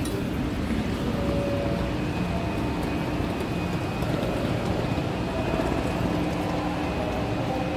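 Steady low rumble of a busy railway station platform beside a parked high-speed train.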